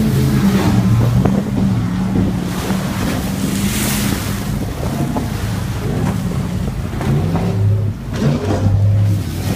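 Motorboat engine running steadily over choppy water, with waves splashing and wind buffeting the microphone. A loud rushing hiss about four seconds in.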